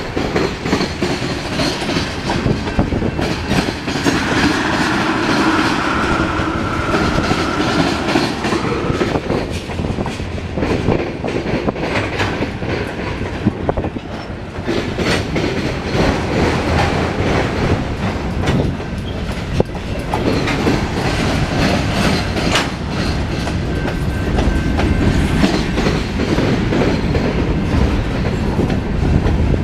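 Cars of a slow-moving Norfolk Southern mixed freight train rolling past, wheels clicking and clacking over the rail joints. A faint steady whine, likely wheel squeal, comes in about four seconds in and fades after a few seconds.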